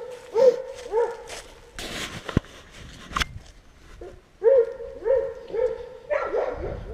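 A dog whining in short, repeated high yelps, in two bunches, with a couple of sharp knocks between them.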